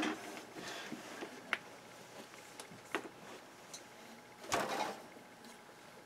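A heavy aluminium-plated server processor backplane being handled and turned over on a workbench: a few light knocks and clicks, then a longer sliding scrape about four and a half seconds in.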